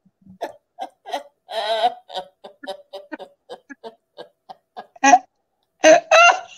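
Women laughing hard in a long run of short breathy bursts, about three or four a second, with louder bursts of laughter near the end.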